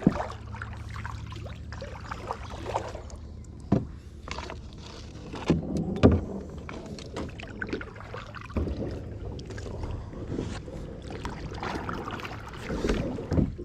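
Knocks and bumps on a kayak with small water sounds, as gear and the angler move about in the boat; sharp knocks stand out at the start and about four and six seconds in.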